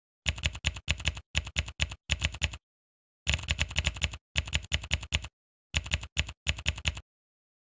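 Rapid keyboard-typing clicks in three runs separated by short pauses, a typing sound effect.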